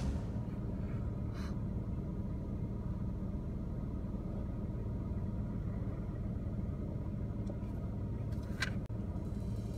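BMW E90 320i's four-cylinder petrol engine idling steadily, heard from inside the cabin while the electronic oil-level measurement runs. A single short click near the end.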